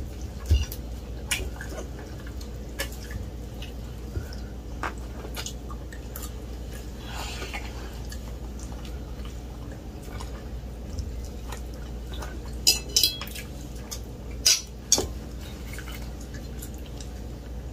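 Forks and knives clicking and scraping against plates while people eat, with quiet chewing between. A handful of louder clinks come about two-thirds of the way through.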